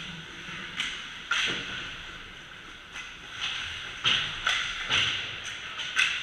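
Ice hockey play on an indoor rink: skate blades scraping the ice and sticks and puck clacking, heard as a series of sharp knocks and scrapes that are loudest in the last two seconds.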